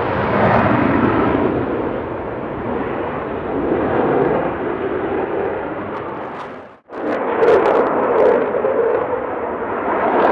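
Jet noise from a Dassault Rafale M fighter's twin Snecma M88 turbofans, afterburners lit at the start. The noise cuts out for an instant about seven seconds in, comes straight back, and carries a few short crackles.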